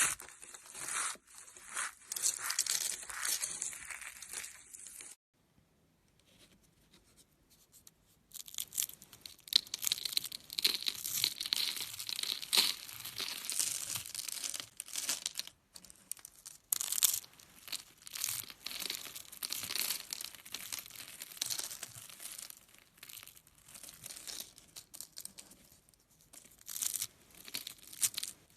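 Crinkly material being squashed and crushed, giving crackling, crinkling and tearing sounds in irregular bursts, with a pause of about three seconds about five seconds in.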